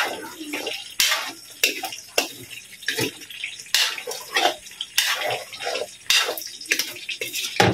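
Metal ladle scraping and clanking against a metal wok as pork pieces are stirred and browned in oil, about one or two strokes a second.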